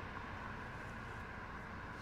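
Road traffic passing: a steady rumble of cars going by.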